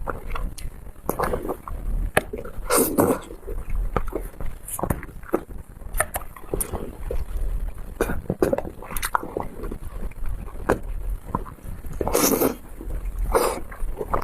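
A person eating close to the microphone: irregular wet clicks and smacks of chewing and biting, with a few longer noisy slurps, the loudest about three seconds in and near the end.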